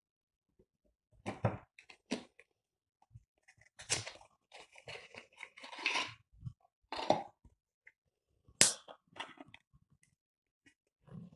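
Small equipment parts handled close up: a string of sharp clicks and taps, with a longer rustle midway and one sharp click past the three-quarter mark, as the sealed electronic filter wheel is opened and its filters are fitted.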